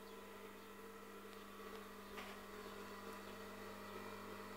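Faint, steady electric hum from an industrial twin-needle sewing machine's motor, switched on but not stitching, with one faint click about two seconds in.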